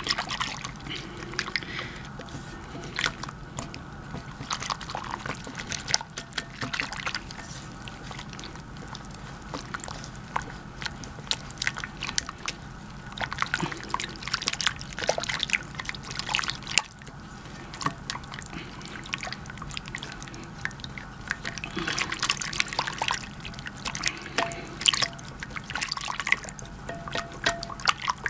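Wire whisk beating flour into meat juice and potato water in a crock pot: irregular wet clicking and sloshing as the wires work through the liquid.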